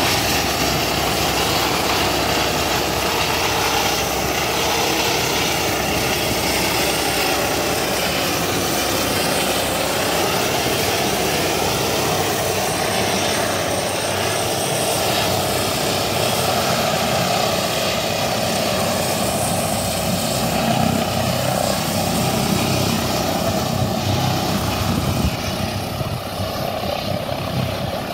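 Helicopter flying low and coming in to land. The rotor and turbine make a steady, loud sound that turns a little quieter and duller near the end as it settles over the helideck.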